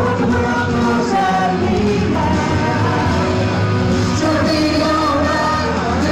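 Two women singing a praise song into handheld microphones over steady instrumental backing.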